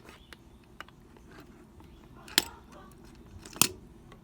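A few sharp clicks and knocks from handling the playset's pieces and packaging, with two louder clacks about two and a half seconds in and again a second later.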